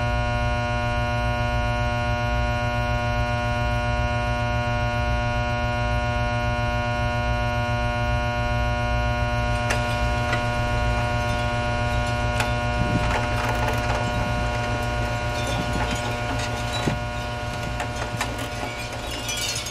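A steady electronic drone with many even overtones, the Hypnotoad hum sound effect. Faint scattered clicks join it from about halfway through.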